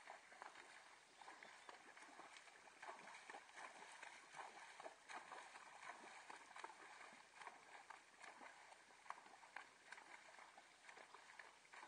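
Faint splashing of a horse's hooves as it wades through shallow water: a continuous run of irregular sloshing splashes, one with each step.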